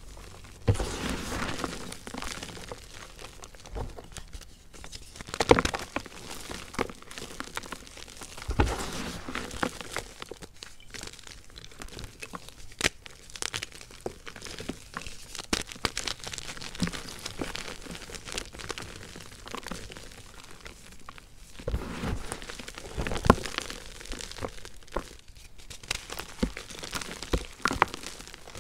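Fingers squeezing and crushing blocks of gym chalk in a bed of loose chalk powder: continuous crunching and crumbling, with sharp cracks now and then as chunks break apart.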